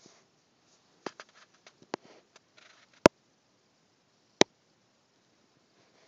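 A scatter of light clicks and taps in a quiet room, then two sharp, loud knocks about a second and a half apart.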